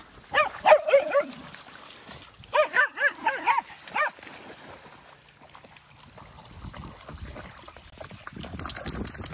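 A dog giving two quick bursts of short, high-pitched yips and barks, the first near the start and the second about two and a half seconds in, each about a second long.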